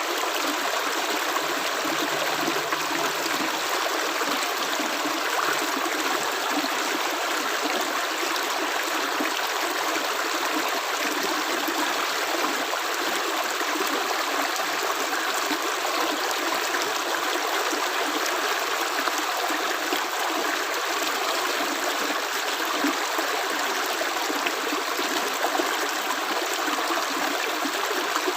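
Running water flowing steadily, an even stream-like rush with no separate drops standing out.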